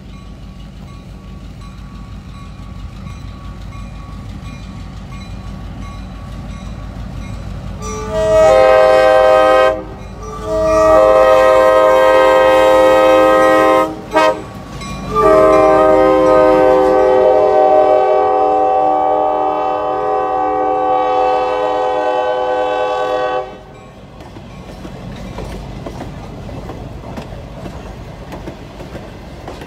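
Diesel switcher locomotive's multi-note air horn sounding long, long, short, long, the grade-crossing signal, the last blast held about eight seconds, over the rumble of the approaching locomotive. After the horn stops, the wooden passenger coaches roll past with wheel clatter on the rails.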